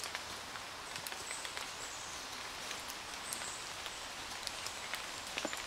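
Outdoor background: a steady hiss with scattered faint irregular ticks and a few brief high chirps; no shot is fired.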